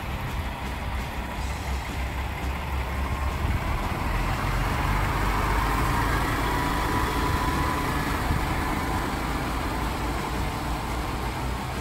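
Diesel engine of a Kenworth W990 tractor-trailer running as the rig moves slowly past, a steady low rumble that grows louder toward the middle and then eases a little.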